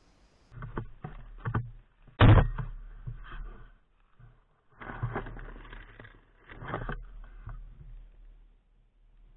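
Handling and movement noise close to an action camera: a run of knocks and rustles, the loudest a sharp knock about two seconds in, with rustling bursts around five and seven seconds.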